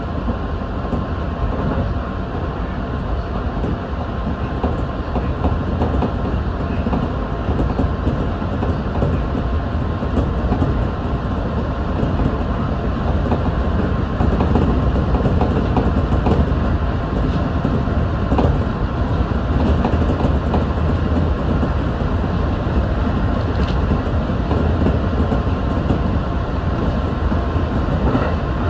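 Electric train running steadily along the track, heard from inside the driver's cab: a continuous rumble of wheels on rail with a faint steady whine and occasional light clicks over the rail joints.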